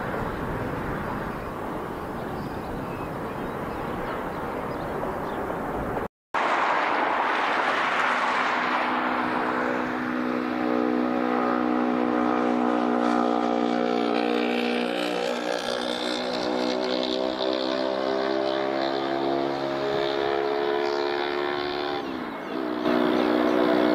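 Jet airliner engines: a broad jet roar, broken by a brief silent gap about six seconds in. A second roar follows and settles into a whining engine tone of several pitches that slowly falls, dipping briefly near the end.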